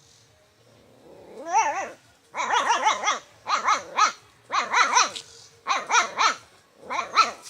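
Dog barking in repeated clusters of two or three barks, about one cluster a second, starting about a second and a half in.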